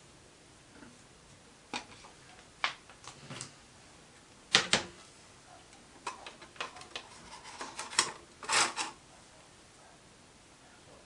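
Small metal parts clicking and clinking against the Myford lathe's cross-slide as they are handled and set in place. Scattered sharp clicks, the loudest two close together a little before halfway and a cluster about three-quarters through.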